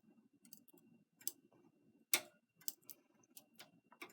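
Faint, irregular small metal clicks of a latch tool working against knitting-machine needles as stitches are latched on along the row, with one sharper click about two seconds in.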